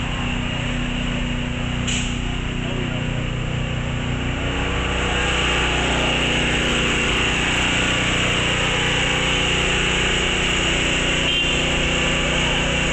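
A small motor running steadily with a constant drone, which gets louder about five seconds in.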